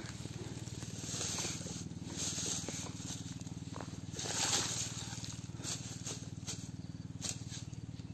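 Dry grass and brush rustling in several short spells as they are pushed aside, the loudest about four and a half seconds in, over a steady low hum.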